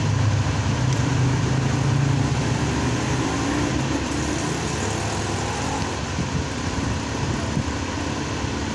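A steady low engine rumble, like a motor vehicle running or idling nearby, with a constant background hiss; the rumble eases a little after about six seconds.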